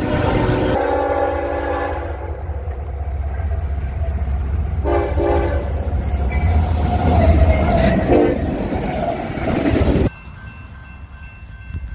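Diesel locomotive horn sounding in several blasts over the heavy rumble of a passing train. The sound cuts off abruptly about ten seconds in to a much quieter scene.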